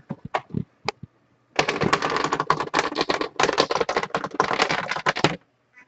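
Typing on a computer keyboard: a few scattered key clicks, then about four seconds of fast typing in several runs with short pauses.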